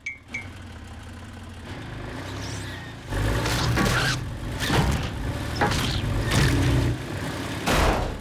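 Cartoon car engine running, then revving louder about three seconds in as the car drives up onto garage ramps, with several sharp bangs over it.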